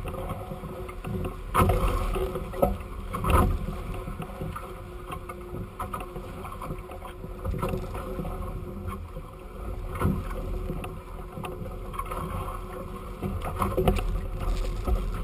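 Sailing catamaran hulls running through choppy water: steady rush and splash of water along the hulls, with wind buffeting the microphone and a few louder wave slaps against the hulls.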